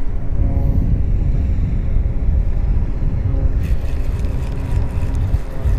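Wind buffeting the camera microphone with a heavy low rumble. From a little past halfway there is a fast rattling clicking as a spinning reel is cranked.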